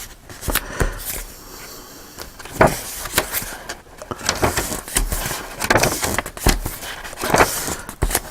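Paper rustling and tapping as the heavy cardstock pages and envelopes of a handmade journal are handled and turned, in irregular rustles and light knocks.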